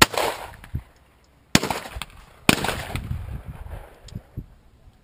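Shotgun shots at clay targets: one right at the start, another about a second and a half later and a third a second after that, each trailing off in an echo.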